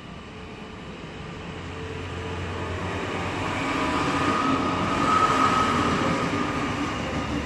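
Regional passenger train approaching and passing on the tracks, growing louder to a peak about five seconds in, with a steady high whine at its loudest.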